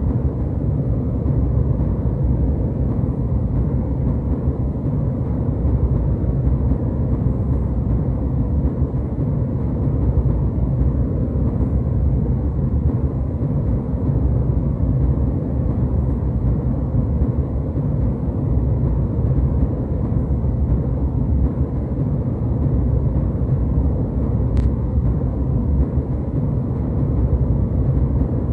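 Steady jet airliner cabin noise in flight: a constant low rumble of the engines and airflow with a faint hiss above it.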